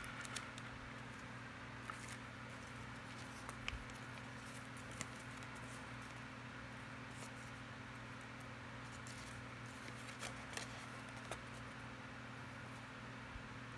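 Handling noise from a paper instruction sheet and a plastic case: scattered light clicks and paper crinkling as the folded sheet is lifted out and opened, over a steady low hum.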